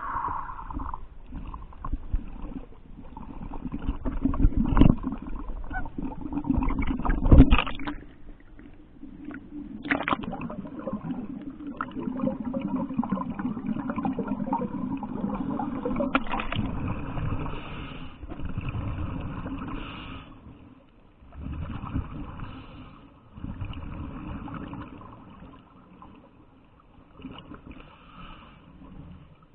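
Muffled water noise, sloshing and gurgling in surges of a few seconds, with several sharp knocks in the first eight seconds.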